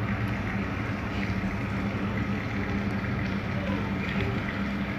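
Steady background noise with a low, even hum under it.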